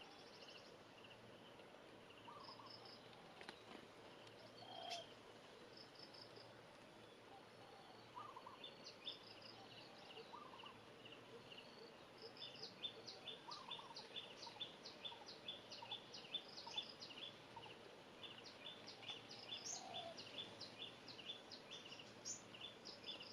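Faint, short high-pitched chirps repeated about twice a second, growing busier about halfway through, with a few lower calls now and then: small birds chirping.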